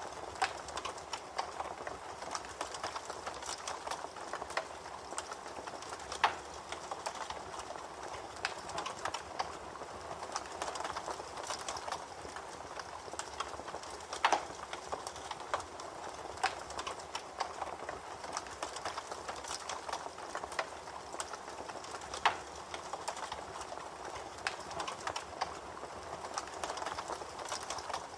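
Campfire crackling: a steady mass of small crackles with a few louder, sharper pops spread through.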